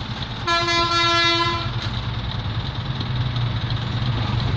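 Batara Kresna railbus sounding its horn once as it approaches the level crossing: a single steady note of a little over a second, starting about half a second in, over a low steady engine rumble.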